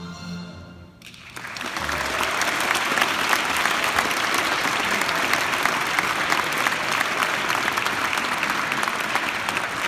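The last held chord of the music dies away in the first second, then an audience breaks into applause that swells over the next second or two and goes on steadily.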